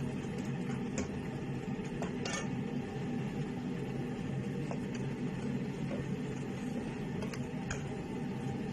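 Occasional sharp clinks of utensils or dishes against cookware over a steady low background hum.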